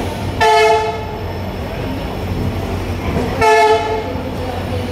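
Two short train horn blasts about three seconds apart, over the steady rumble of a passenger train pulling out of a station.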